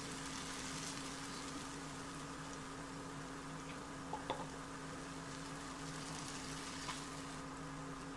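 Chopped tomatoes and onions sizzling gently in oil in a non-stick frying pan: a steady soft hiss with a low hum under it. A couple of faint clicks a little past halfway, and another near the end.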